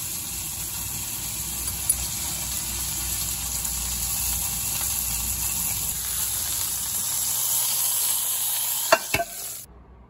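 Steady sizzling of food frying in a pan, with two sharp knocks near the end before the sound cuts off abruptly.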